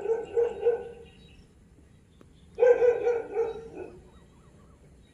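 A dog barking in two short bouts of a few barks each: one at the start and one a little past halfway.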